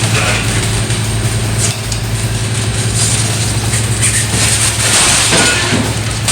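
Delivery truck running at idle, a steady low hum, with intermittent metallic rattling and clatter over it.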